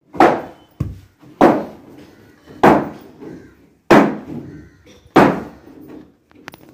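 Five heavy thuds at an even pace, about one and a quarter seconds apart, each ringing out briefly, with one lighter knock between the first two.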